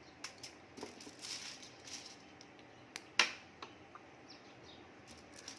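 Hard ginger-honey candies being pulled off aluminium foil: faint foil crinkling and light clicks, with one sharper click about three seconds in.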